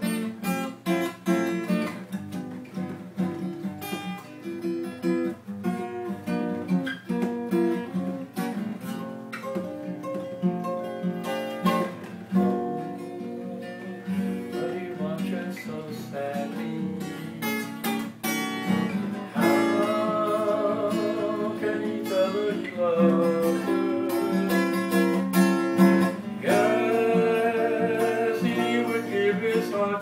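Steel-string acoustic guitar being strummed in a steady rhythm of chords.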